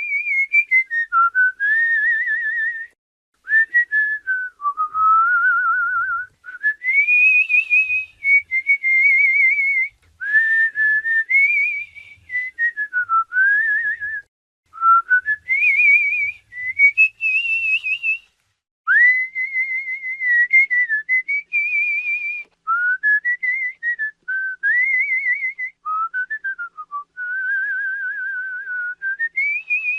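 A person whistling with the lips: a string of short phrases, the pitch gliding up and down and wavering in places, with brief pauses between phrases.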